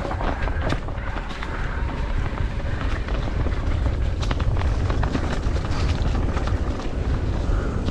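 Wind rumbling on the microphone of a mountain bike descending a rough trail, with scattered knocks and rattles from the bike going over rocks and roots.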